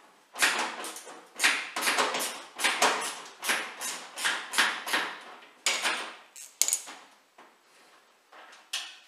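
Socket ratchet clicking in short, sharp bursts about twice a second as a threaded bolt at the washing machine's bottom corner is undone, thinning out to a last click or two near the end.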